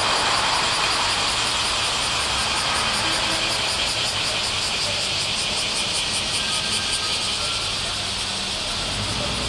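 Shinkansen train running at speed along the platform: a loud, steady rushing noise with a strong high hiss that slowly fades.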